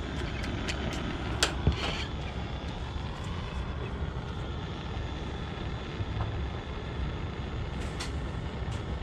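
Steady rushing roar of a propane-fired soldering copper's burner while the hot copper is held on a galvanized sheet-metal seam. Two sharp taps about a second and a half in.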